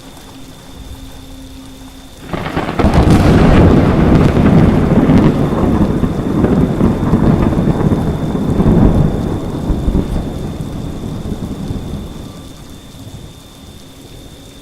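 Thunder in a rainstorm: a sudden crack of thunder about two seconds in, breaking into a long rolling rumble that slowly fades away, over steady rain.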